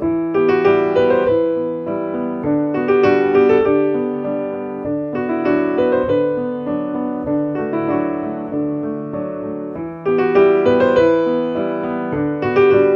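Background piano music: a gentle melody of struck notes that ring and fade, its phrases starting afresh every few seconds.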